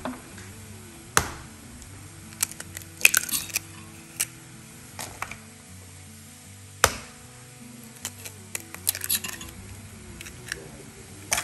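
Eggs cracked one after another against the rim of a stainless steel bowl: sharp cracks and clinks a few seconds apart, the sharpest about a second in, about three seconds in and about seven seconds in. Background music plays throughout.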